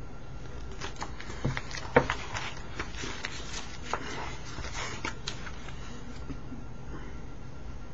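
A comic book's pages being flipped and the book handled: scattered paper rustles and short clicks, the sharpest about two seconds in, over a steady low hum.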